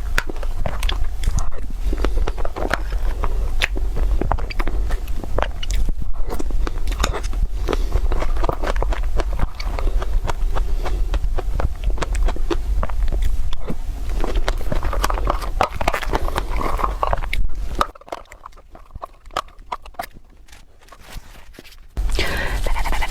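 Close-miked eating sounds: a person biting and chewing, with many short crisp clicks over a steady low hum. It drops away for about four seconds late on, then starts again.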